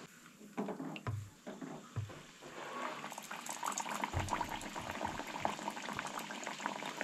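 Banana bun dough frying in a steel kadai of hot oil: the oil sizzles and crackles with vigorous bubbling, building from about three seconds in. A few soft knocks come before it.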